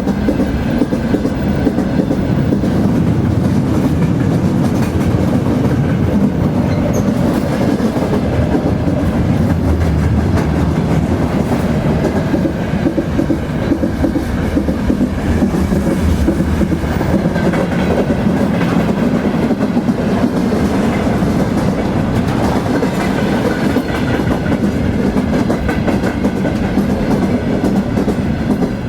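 A train rolling along the track: a steady low rumble with the clickety-clack of wheels running over rail joints.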